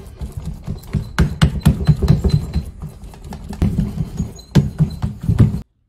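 Hands pressing and patting crumbly semolina dough flat into a metal baking tray: irregular soft thumps and knocks of palms and fingers against the dough and the tray. The sound cuts off suddenly near the end.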